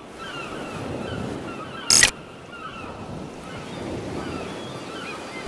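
Water washing and lapping, with birds calling over it again and again in short chirping calls. A single sharp, loud bang comes about two seconds in.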